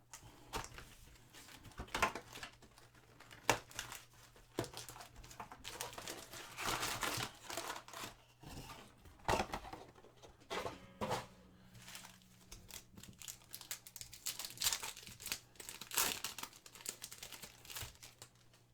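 Plastic wrapping of a trading-card box and its packs crinkling and tearing as they are opened, in irregular rustles and sharp crackles.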